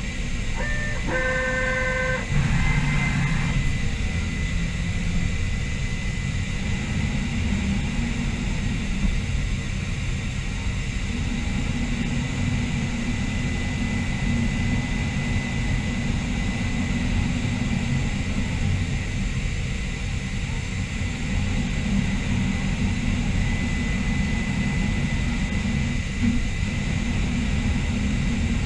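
Steady running noise of a Mazak VC-500 AM hybrid 5-axis machine during laser metal deposition: a constant low rumble with hiss above it. A short electronic beep sounds about a second in.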